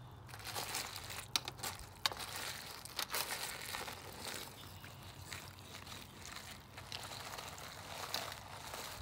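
Cooked crawfish being stirred in a pot of seasoned boil water during the soak: a crackling, clattering rustle of shells with some sloshing and a few sharp knocks, as the floating crawfish are pushed down to the bottom.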